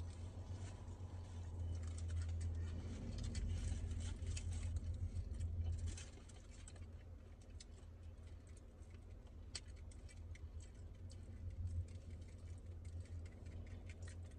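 Close-up eating sounds: small crisp crackles and clicks of someone biting and chewing crunchy fried chicken and handling the food packaging, scattered irregularly, over a steady low hum that drops back about six seconds in.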